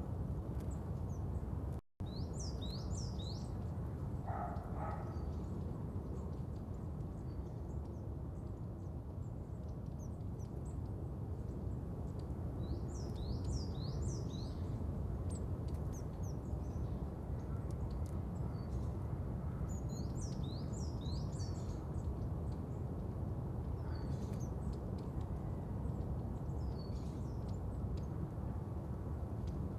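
Small birds chirping in scattered bursts of quick high notes over a steady low outdoor background hum. The sound cuts out completely for an instant about two seconds in.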